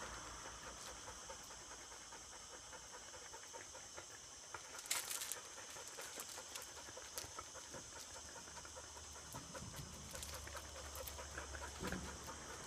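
Dogs panting, faint and steady, with small scattered clicks and one brief scratchy rustle about five seconds in.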